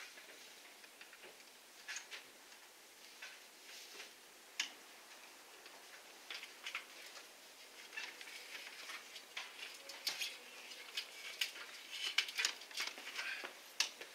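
Scattered light clicks and taps of hands and tools working on an outboard motor's cables and fittings, sparse at first and coming more thickly in the second half.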